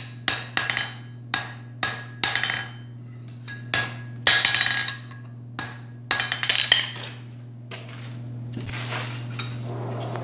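Hand hammer striking a red-hot 5/8-inch steel bar on an anvil, about a dozen irregular blows in short groups, each with a bright metallic ring, while a tong blank is forged. Near the end the blows stop and a rough rustling noise follows as the bar goes back into the coal forge, over a steady low hum.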